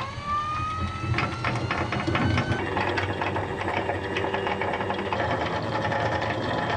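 Electric anchor windlass lowering the anchor. The motor starts with a rising whine, then runs steadily while the chain rattles and clicks over the gypsy as it pays out.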